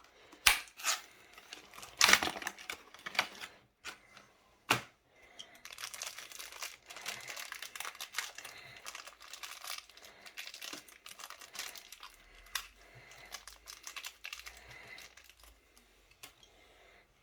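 Toy packaging being torn open and crinkled by hand: cardboard and plastic crackling and rustling, with a few sharp clicks and knocks in the first five seconds.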